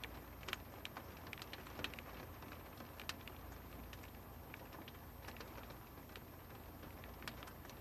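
Steady light rain, with irregular drops ticking sharply on a hard surface, several in a second at times and then sparse.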